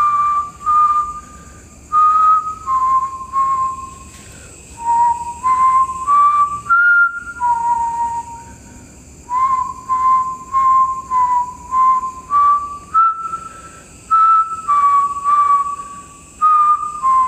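A man whistling a slow tune by mouth: clear single notes held and stepping up and down in short phrases, with brief pauses for breath between phrases.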